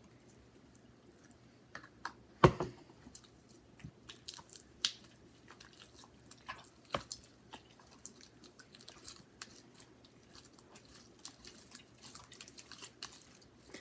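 Freshly activated slime being worked by hand, giving a run of small sticky clicks, squelches and crackles. A sharp knock sounds about two and a half seconds in and a lighter one about seven seconds in.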